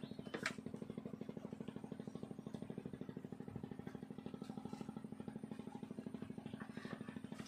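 Small engine running steadily with a fast, even pulsing beat. A sharp click sounds about half a second in.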